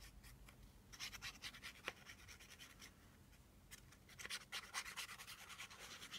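Faint scratching and rubbing of paper being handled on a desk, in two short spells, about a second in and again around four to five seconds in.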